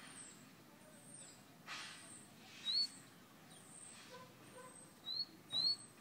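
Caged songbird, the Guyanese cage bird called a "fire red", giving short rising whistles: one about three seconds in and two close together near the end. A brief soft hiss comes a little before two seconds in.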